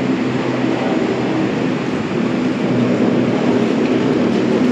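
Loud, steady rumble of vehicles with a low hum.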